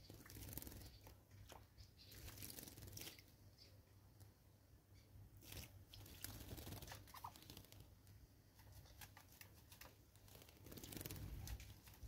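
Faint splashing and wing flutters of small birds bathing in a shallow water basin, heard as scattered short splashes and flicks.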